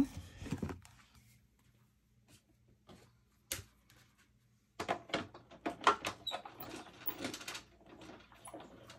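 Hands handling cardstock and embossing plates as a panel is readied for texture embossing: scattered clicks, taps and rustles. The sounds are sparse at first and get busier from about five seconds in.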